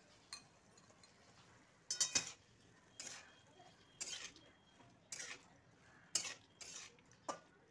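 A spatula stirring and scraping chunks of boneless chicken around a metal wok, in separate strokes about once a second, the loudest about two seconds in.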